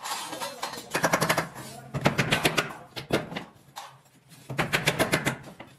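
Rapid metallic clicking and rattling in four short bursts, from steel reinforcing bars and tie wire being handled and worked with a hook tool.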